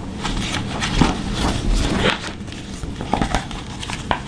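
Picture-book pages being turned and handled: irregular papery rustling and crinkling, with a few sharp ticks near the end.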